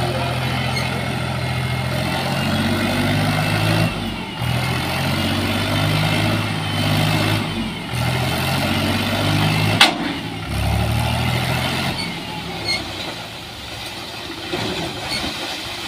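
Mahindra tractor's diesel engine running under load, its pitch rising and falling as it powers the hydraulic lift tipping the trailer to dump soil. A single sharp clank about ten seconds in, and the engine runs quieter for the last few seconds.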